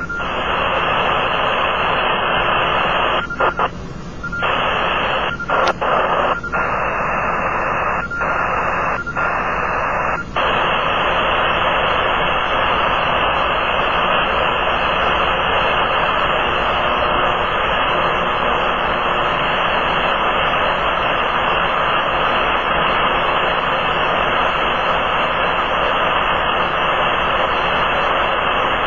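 Powerline interference heard through a Kenwood TS-480 HF transceiver's speaker in AM mode: a loud, steady rush of noise filling the receiver's audio, the sign of radio-frequency interference from nearby power lines swamping the band. In the first ten seconds, as the receiver is retuned from 5.3 MHz into the 40-meter band, the noise drops out briefly several times and a thin steady whistle comes and goes; after that it runs unbroken.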